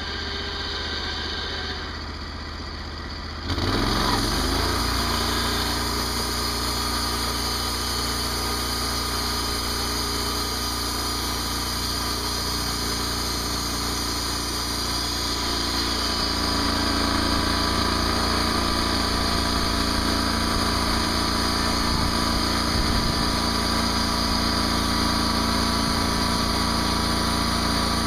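Gasoline engine of a portable band sawmill idling, then revved up sharply about three seconds in as the band blade starts turning, running steadily after. About halfway through it gets a little louder and its note shifts as the blade cuts into the western red cedar log.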